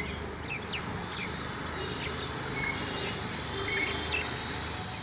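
Small toy quadcopter drone's motors and propellers buzzing steadily, with short bird chirps scattered through it.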